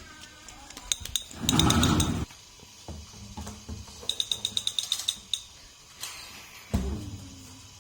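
Toy Nerf blaster mechanism clicking in a fast, even run of about eight to ten clicks a second, heard again about four seconds in, with a louder burst of noise lasting under a second about a second and a half in.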